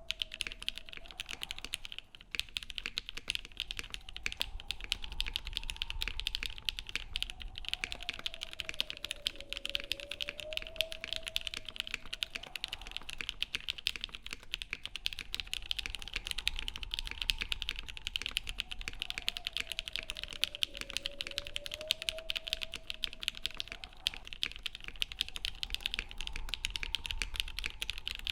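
Steady, fast typing on a custom mechanical keyboard: 'Giant Minks' switches (Gateron Giant stem, Milky top housing, Ink bottom housing, lubed with Krytox 205g0 and filmed) on a polycarbonate half plate in an aluminium KFE case with a brass weight, under GMK keycaps. A fainter tone slowly wavers up and down behind the key clicks.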